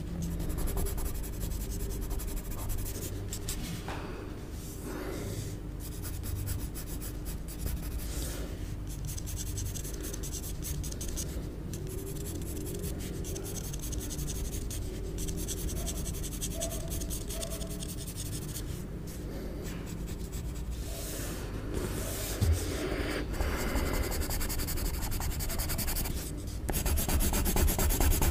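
Graphite pencil scratching and rubbing across paper in shading strokes, getting louder and rougher near the end.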